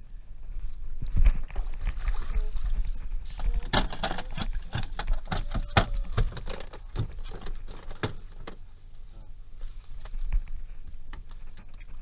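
Irregular knocks and clatter on a small fibreglass fishing boat, thickest in the middle few seconds, as fishing gear and line are handled, over a steady low rumble.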